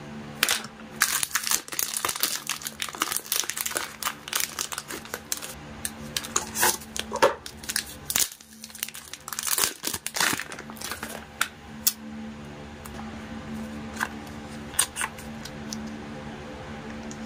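Clear plastic protective film crinkling and crackling as it is peeled off and handled, with many sharp crackles that thin out to a few over the last several seconds.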